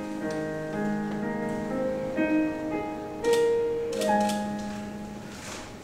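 Slow, gentle piano music, with notes held about a second before the chords change.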